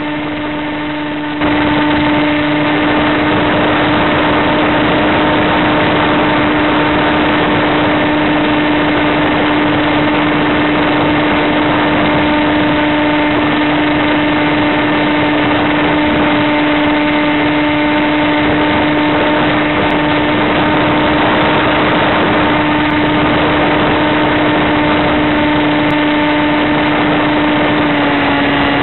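Multiplex EasyStar RC plane's electric motor and pusher propeller running steadily under power, heard onboard as a constant hum over a rush of airflow. The overall noise steps up about a second and a half in, and the pitch drops slightly near the end.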